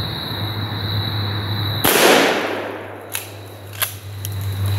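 A single blast from a Benelli Nova 12-gauge pump shotgun about two seconds in, its report dying away in under a second, followed by two short sharp clacks.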